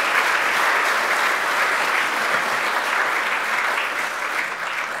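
Audience applauding, steady clapping that eases off slightly near the end.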